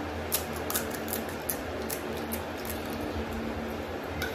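Crisp, sharp crackles of a hollow fried panipuri shell being cracked open with the fingers, a handful of snaps in the first two seconds or so, over a steady background hum. Near the end a light clink of a spoon in a steel bowl.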